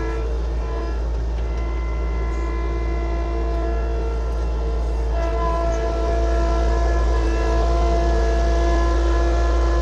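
Engine of an earthmoving machine running steadily with a whine of several tones while the machine is stuck in the gravel. About five seconds in, the pitch steps and the sound gets a little louder.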